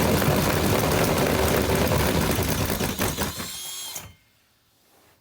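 Power drill driving a hole saw through the camper wall, cutting with a dense rattling grind, then dropping off about three seconds in and stopping about a second later as the saw bottoms out.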